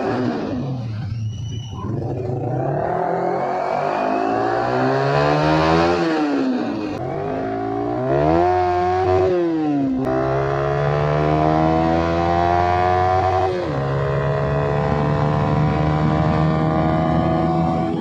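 Yamaha R15 V3's 155 cc single-cylinder engine through an Akrapovic slip-on exhaust, revving and accelerating: the pitch climbs and falls several times, with sudden drops about halfway and two-thirds through, each followed by a slow steady climb as in a gear change.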